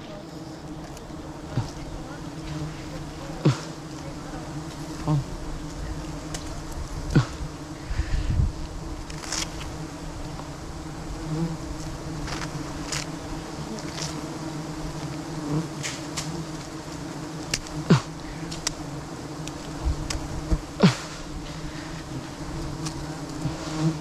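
A swarm of wild honeybees buzzing around a hive being cut out: a steady low hum, with scattered sharp clicks and knocks.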